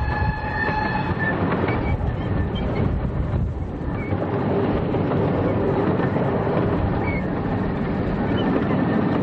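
A 15-inch-gauge miniature railway train running on the track, with a dense rumbling and clatter of wheels. A locomotive whistle is sounding at the start and cuts off about a second in.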